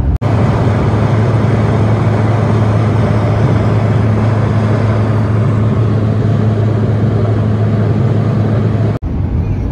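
Car driving along a road: a steady engine drone under a loud, even rushing of road and wind noise, cutting off suddenly near the end.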